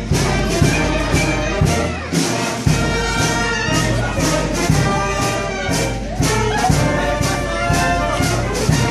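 Brass band music playing a march: trumpets and trombones over a steady drum beat of about two strikes a second.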